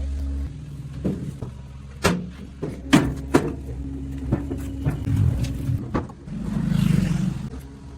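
A vehicle engine running low and steady, with a series of sharp knocks and clunks and a swell of louder noise shortly before the end.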